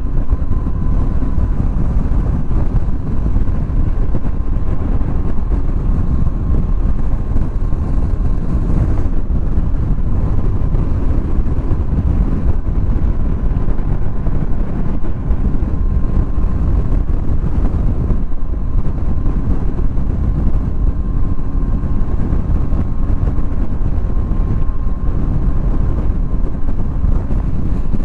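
Triumph Tiger 800 ridden at a steady cruise: wind rushing over the bike-mounted microphone together with the engine and road noise, loud and unchanging, with a faint steady whine above it.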